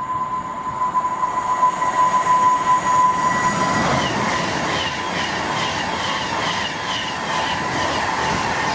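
Class 390 Pendolino electric train passing at speed. A steady high whine sounds as it approaches, then comes the rushing noise of the carriages going by, with a sound repeating about twice a second once it is alongside.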